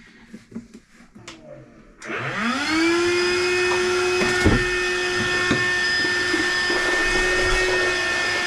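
Stanley wet/dry shop vacuum switched on about two seconds in: its motor whine rises over about a second, then runs at a steady pitch. A few knocks of the hose and nozzle sound over it. Before it starts, there are light handling clicks and knocks.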